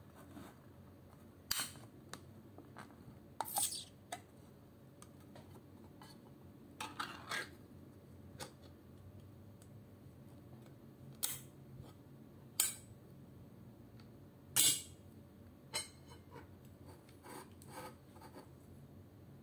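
Ring-pull lid of a canned tuna tin being opened and the open can handled: separate sharp metal clicks, scrapes and clinks, a second or two apart.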